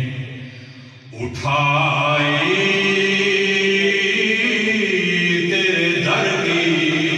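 A man reciting a naat (Urdu devotional poem) in a chanting voice through a microphone, with long-held, wavering notes. The voice drops off briefly about a second in, then comes back on a long sustained line.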